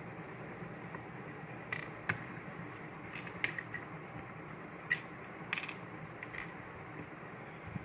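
Clear plastic parts of a Stage Act Humanoid display stand clicking and tapping as they are fitted together by hand: about six short sharp clicks, the loudest about five seconds in, over a faint steady background hum.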